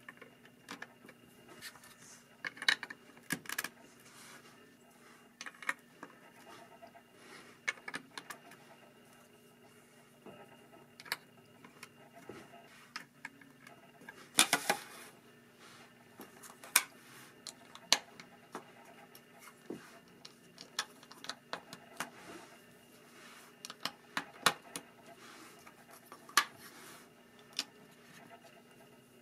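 Plastic Lego bricks being handled and pressed together by hand: irregular sharp clicks and clacks, with a louder cluster about halfway through.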